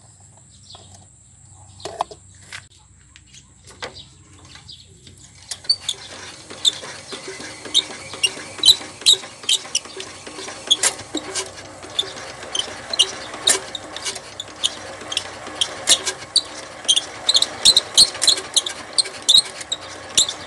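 Single-cylinder ER550 diesel engine, primed with diesel through the intake manifold, being cranked over without catching. About five seconds in a fast run of sharp clicks and clatter starts over a steady hiss. The owner puts the hard starting down to low compression, suspecting a carbon-fouled valve in the cylinder head.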